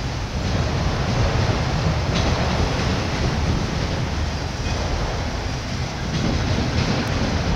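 Autorack freight cars rolling past: a steady rumble of steel wheels on rail, with a faint click or two as wheels cross the rail joints.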